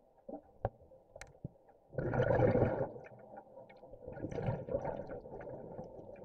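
Scuba regulator exhalation heard underwater: a loud gush of bubbles about two seconds in, then a second, weaker and longer one around four to five seconds, with a few faint clicks before them.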